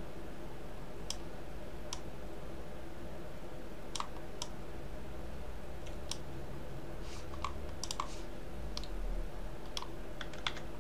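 Computer mouse buttons clicking: scattered single clicks, some in quick succession, about a dozen in all, over a faint steady hum.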